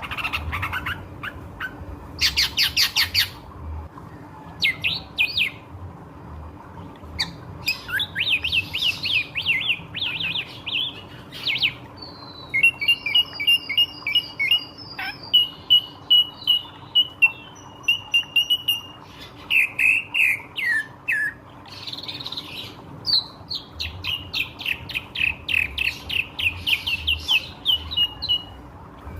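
Ashy drongo singing a varied, nearly continuous song: fast runs of repeated chattering notes, held clear whistles in the middle stretch, and short harsh buzzy phrases.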